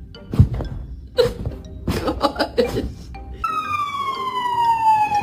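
A dog howls: a few short sounds, then about three and a half seconds in, one long howl that slowly falls in pitch.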